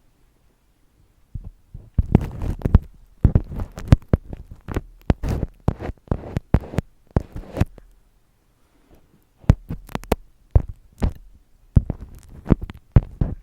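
Close-miked ASMR tapping: irregular sharp taps and clicks, each with a soft low thump, in two runs separated by a pause of about a second in the middle.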